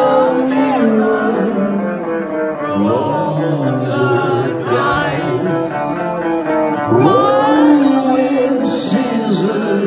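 Live rock band playing a song: guitars and band backing a male lead singer whose voice slides between notes, at a steady loud level throughout.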